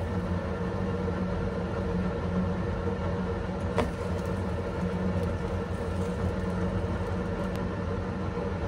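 A steady low mechanical hum, with one brief sharp click about four seconds in.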